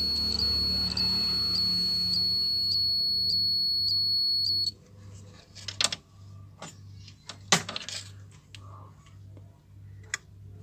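Switch-mode power supply of a DTH set-top box ticking rhythmically, about twice a second, over a steady high-pitched whine, the sign of a fault in the supply that the repairer wonders is a bad diode. The sound cuts off suddenly a little under halfway through, and a few sharp clicks follow.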